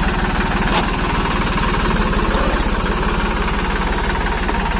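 Massey Ferguson 9500's three-cylinder turbocharged diesel engine running steadily at low speed as the tractor is driven slowly, with an even, close knocking beat. A short sharp click comes a little under a second in.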